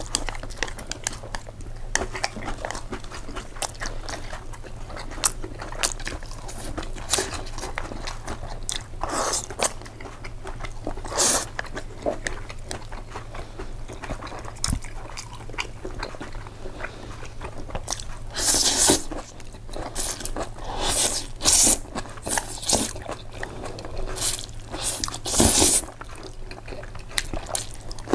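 Close-miked eating sounds of a person eating pasta: continuous chewing and biting with many small wet mouth clicks. Several louder, longer noisy bursts come in the second half.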